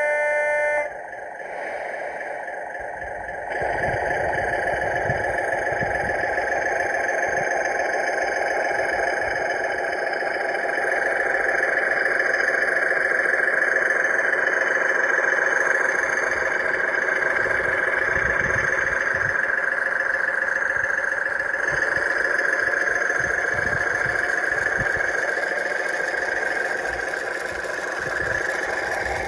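Sampled British Class 37 "growler" diesel engine sound played through the onboard loudspeaker of a radio-controlled G-scale model locomotive as it runs. The drone gets louder about three and a half seconds in, then holds steady.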